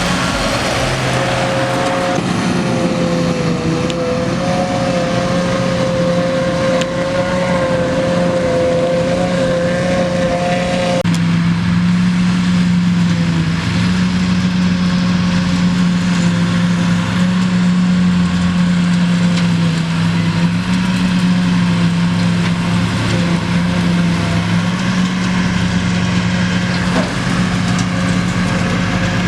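Massey Ferguson 6465 tractor running steadily under load, driving a JF900 trailed forage harvester through heavy first-cut silage. A wavering whine sits over the engine for about the first ten seconds and then stops abruptly.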